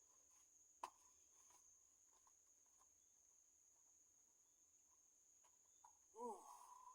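Near silence with a faint, steady high-pitched whine throughout, a single click about a second in, and a short pitched sound that falls and then levels off near the end.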